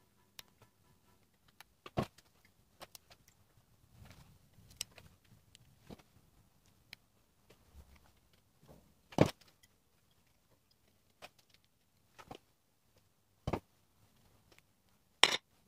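Scattered sharp clinks and taps of a metal spoon against a stainless steel ring mould and a ceramic plate as mascarpone cream is spooned into the mould. The loudest knocks come about nine seconds in and near the end.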